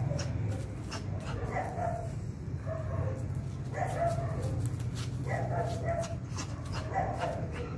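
A Jack Russell terrier barking in short, repeated calls, roughly one a second, over a steady low hum.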